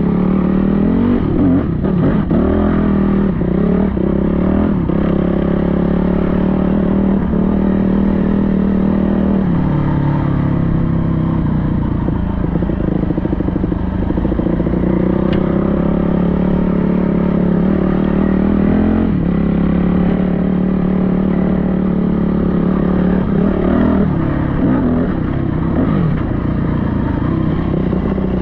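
Yamaha WR250F dirt bike's single-cylinder four-stroke engine running under way. The revs climb and fall several times as the throttle is worked, and the engine note holds steady in between.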